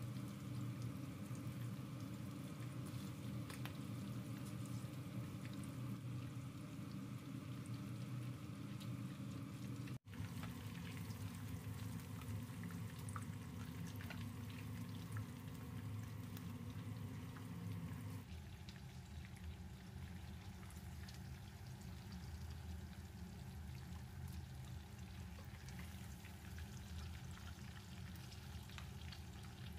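Hot oil sizzling and bubbling around breaded corn dogs shallow-frying in a pan, with many small crackles and spatters. The sound breaks off for an instant about a third of the way in and drops a little just past halfway.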